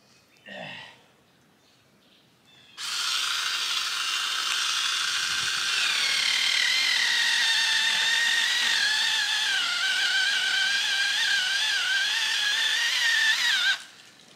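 Seyvum CS-BM11 6-inch cordless mini chainsaw starts about three seconds in and runs with a high electric whine. About six seconds in, the pitch drops and wavers as the chain cuts through a small tree under load. It stops suddenly near the end.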